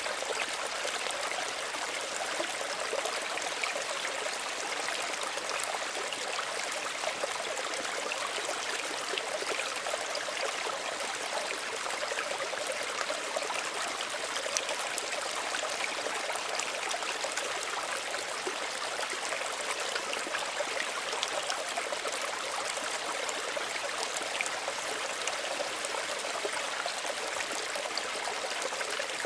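Small stream running and trickling: a steady gentle rush of water with fine splashing and bubbling, unchanging throughout.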